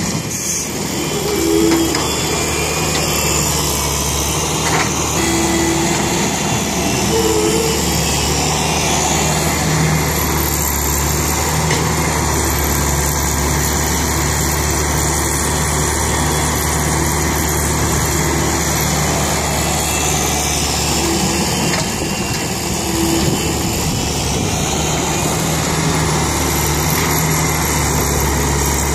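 Komatsu hydraulic excavator's diesel engine running steadily, its pitch rising and falling a few times as it works. Near the start, a load of soil drops into the steel bed of a six-wheel dump truck.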